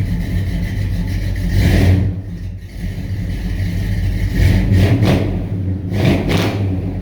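Pickup truck engine running, with its pitch and loudness swelling a few times as it is revved while backing up.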